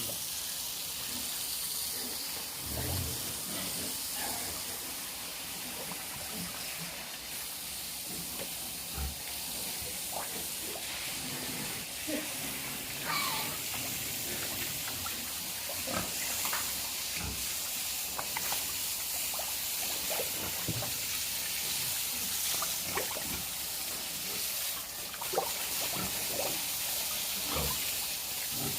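Steady hiss of running water, with scattered short grunts from pigs.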